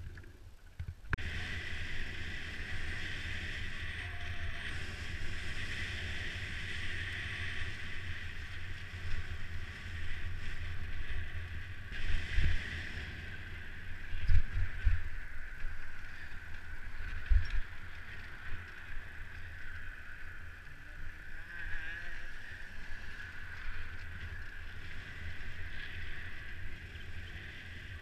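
Steady wind rush and rumble on a bike-mounted camera's microphone while a mountain bike rolls along pavement, with a constant higher hiss of tyre and air noise. Several heavy low thumps come in the middle stretch.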